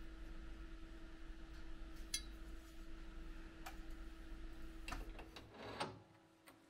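A few light metallic clicks and clinks from the rusty steel bayonet hilt being handled on a metal worktable, the loudest cluster about five and a half seconds in, over a steady low hum that stops shortly after.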